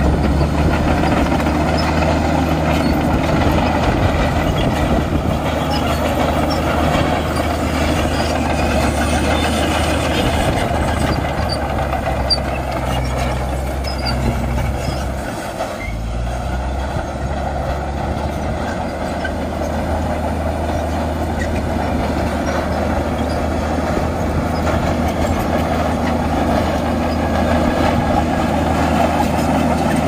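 Heavy diesel engine of earth-moving machinery running steadily, dipping briefly about halfway through and then picking up again.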